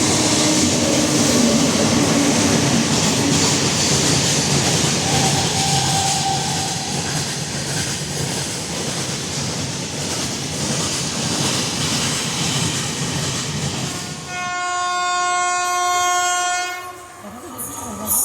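Express train running past with a steady rumble and the clickety-clack of wheels over rail joints. Near the end the noise drops away and a WAP-7 electric locomotive's horn sounds one steady, shrill blast of about two and a half seconds.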